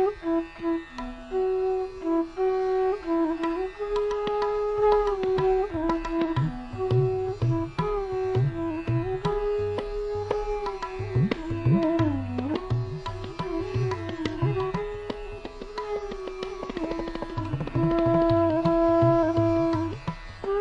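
Background music in Indian classical style: a melodic instrument holds and bends long notes over tabla, whose low drum strokes join about six seconds in.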